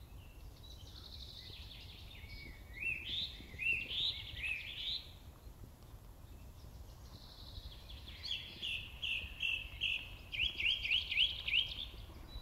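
Songbird singing in woodland: two phrases of quickly repeated notes, some rising, the first about two to five seconds in and the second from about seven seconds in until near the end, over a faint low rumble.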